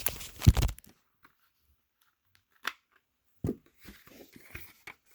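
Plastic smoke alarms being handled: a loud knock about half a second in, then a few sharp clicks and light rustling and tapping of the casings.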